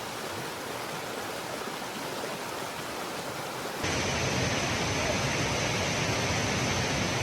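Waterfall: a steady rush of falling water. About four seconds in it changes abruptly to a fuller, deeper rush.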